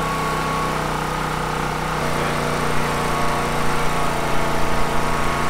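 An engine running steadily, its tone shifting slightly about two seconds in.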